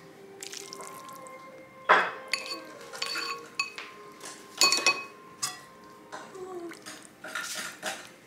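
Dishes and cutlery clinking: tableware knocked together several times, the loudest strike about two seconds in, several strikes leaving a short ring.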